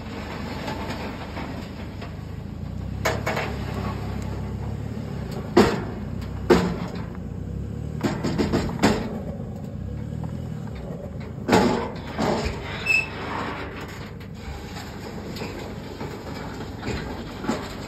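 A diesel pickup engine running with a low, steady rumble, and sharp metallic clunks and knocks from the car-hauler trailer's hitch and chains at irregular intervals. The loudest clunks come about five and a half and eleven and a half seconds in.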